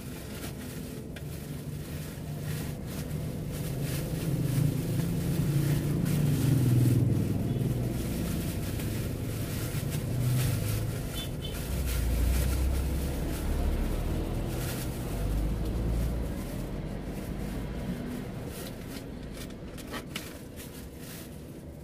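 Street traffic heard from inside a stationary car: a low rumble of passing vehicles that swells and fades twice, with scattered light clicks.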